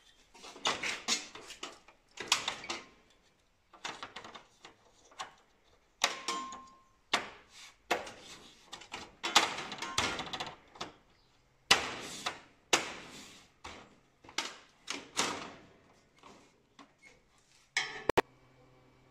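Clatter of the plastic-and-metal top cover of an Océ PlotWave 300 wide-format scanner being handled, lifted and shut: repeated irregular knocks and rattles. Near the end a sharp click is followed by a faint steady hum.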